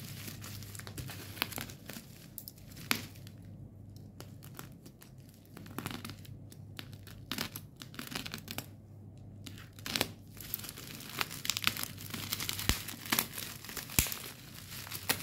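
Plastic wrap around a parcel crinkling and tearing as it is handled and slit open with a box cutter. Irregular crackles and a few sharp clicks, growing busier in the last few seconds.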